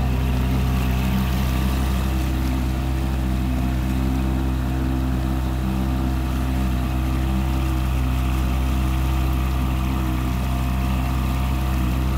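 Motorboat engine running steadily with a low, even hum, holding the same speed throughout.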